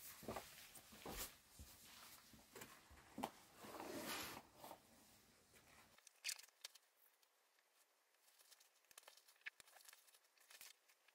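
Faint rustling and scattered clicks of a hiking backpack being packed, its fabric and straps handled as gear is buckled on. The handling sounds are busiest in the first half.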